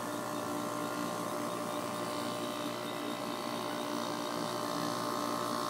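Old window air conditioner running with a steady hum from its compressor and fan. The compressor now sits on new isolating rings, and the vibration noise is much reduced: a huge improvement.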